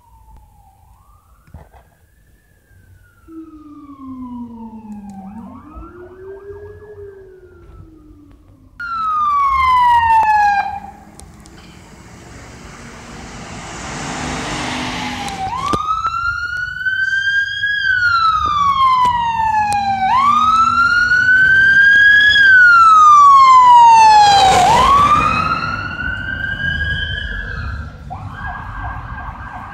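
Ambulance sirens wailing in slow rising and falling sweeps. The siren starts faint, then grows loud as an ambulance passes close before fading, with a different steady siren tone near the end.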